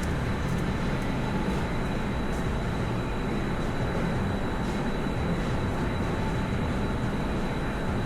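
Steady low rumbling machine-like noise with a thin, steady high whine over it and a few faint ticks.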